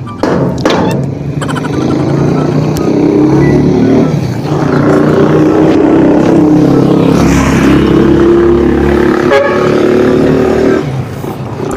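Small motorcycle engine of a passenger tricycle running close by as it passes, a steady engine note that drops away near the end.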